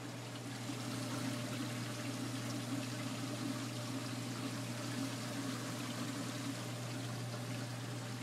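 Reef Dynamics 180E protein skimmer running in an aquarium sump: a steady rush of water and bubbles over a low pump hum, a little louder about a second in.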